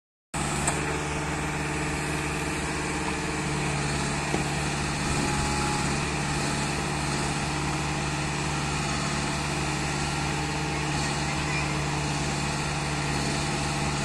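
Backhoe loader's diesel engine running at a steady, unchanging speed.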